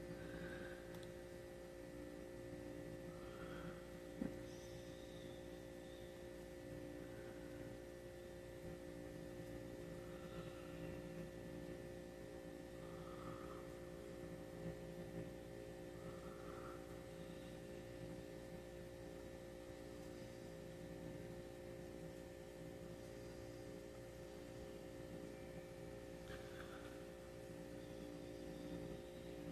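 Faint, steady electrical hum over quiet room tone, with one small click about four seconds in.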